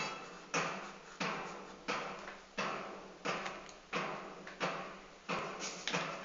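Sparse percussion in background music: evenly spaced hits, each with a ringing tail, about three every two seconds, with a few quicker hits near the end.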